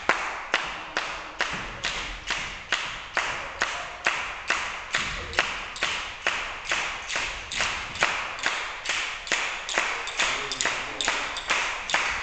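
A group clapping hands in unison to a steady beat, a little over two claps a second, keeping time for tarantella dancing.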